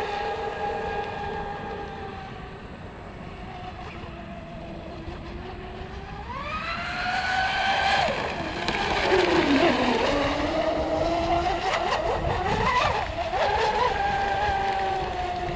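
Radio-controlled speedboat's electric motors and props whining out on the water. The pitch sags over the first few seconds, climbs sharply about six seconds in as the throttle is opened, dips near ten seconds, then rises back to a high, fairly steady whine.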